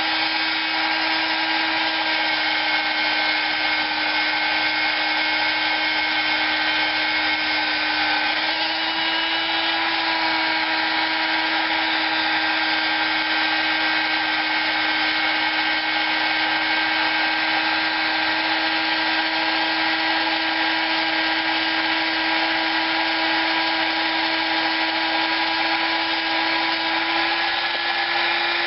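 Small high-speed electric rotary tool running steadily with a 280-grit sanding attachment, porting and smoothing the cylinder head of a Predator 212 engine. It holds a steady high whine, its pitch shifting slightly about eight seconds in and again near the end.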